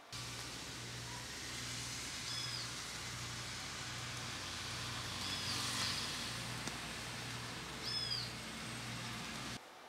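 Outdoor ambience: a steady hiss over a low pulsing hum, with a bird giving a short arched chirp three times, a few seconds apart. The ambience cuts off abruptly near the end.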